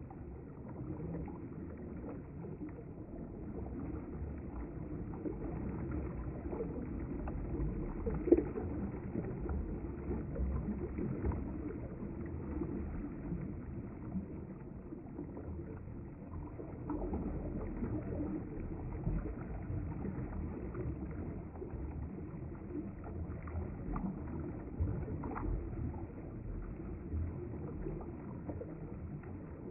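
River water flowing: a steady low rush, with one sharp knock about eight seconds in.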